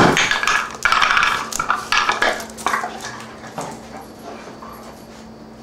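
German Shorthaired Pointer playing rough with a chew toy in a blanket: a run of loud, rough, noisy bursts through about the first three seconds, dying away after that.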